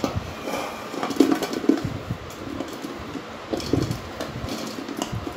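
Chopped raw mango pieces tumbling from a metal plate into an empty aluminium pot. They make an irregular run of knocks and clatters as a hand pushes them off, loudest a little over a second in.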